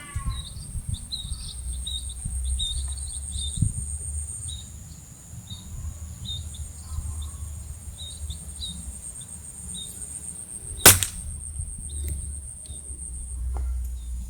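An air rifle fires once, a single sharp crack about eleven seconds in. Small birds chirp throughout over a steady high-pitched insect drone.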